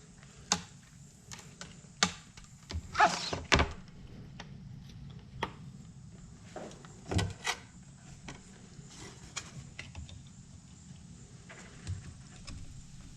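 Handling noise from a light-up door sill being plugged in: scattered light clicks and knocks of plastic and connectors, with a brief scraping rustle about three seconds in.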